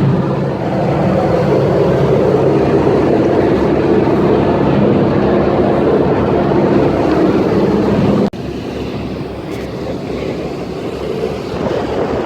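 A boat's engine running steadily, with a deep hum under wind and water noise. About eight seconds in it cuts off suddenly to a quieter rush of wind and waves on the microphone.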